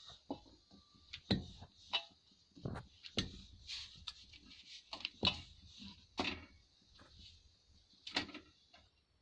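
A wooden rolling pin rolls out roti dough on a wooden board. There are light, irregular wooden knocks, about eight spread over the stretch, with quiet rubbing between them.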